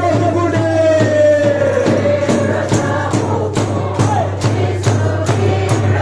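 A congregation singing a lively worship song together, with a steady beat of hand clapping and a tambourine.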